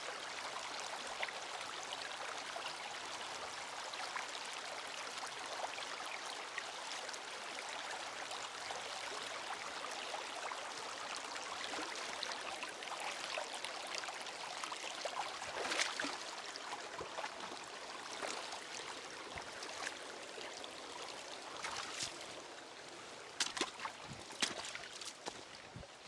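Shallow, rocky creek babbling steadily, easing off slightly over the last several seconds, with a few sharp clicks near the end.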